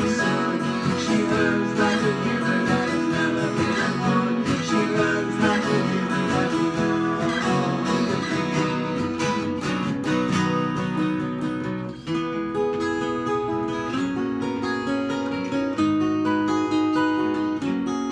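Acoustic guitar played without singing: steady strummed chords, changing about twelve seconds in to picked notes that ring longer.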